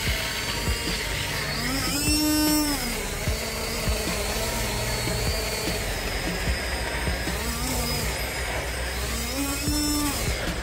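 Small battery-powered motor of a portable rechargeable blender bottle running steadily, its blades spinning plain water inside the bottle.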